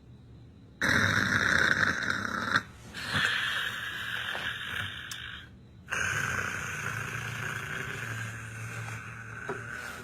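Snoring in three long, loud breaths, each lasting two seconds or more, with short pauses between them.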